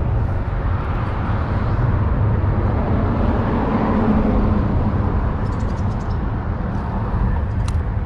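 Steady rumble of highway traffic, with a few faint high clicks in the second half.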